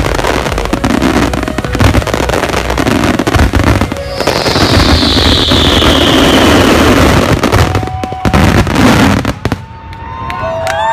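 Fireworks display going off in a dense barrage of bangs and crackling, with a hissing whistle falling in pitch a few seconds in. The barrage stops abruptly near the end.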